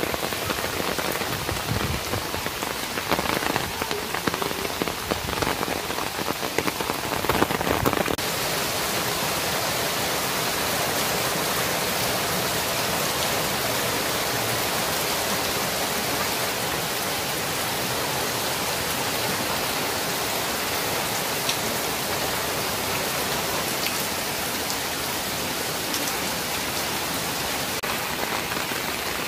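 Heavy monsoon rain falling on floodwater, a steady hiss. For the first eight seconds or so, closer drops strike irregularly over it; after that the rain sound is smooth and even.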